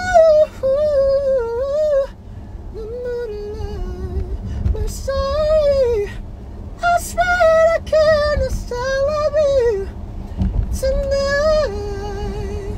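A man singing a slow ballad melody live and unaccompanied in a high tenor voice, in several phrases of held notes with vibrato and short breath pauses between them, over a steady low rumble.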